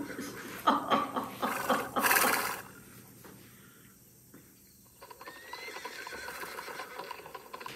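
Horse sound effects: a loud burst of neighing from about a second in to about two and a half seconds, then a lull and fainter sound from about five seconds.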